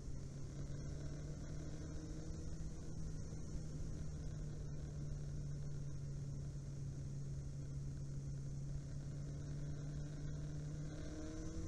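Inline-four sport motorcycle engine running at a steady, nearly constant pitch over a low rumble, climbing in pitch near the end as it picks up revs.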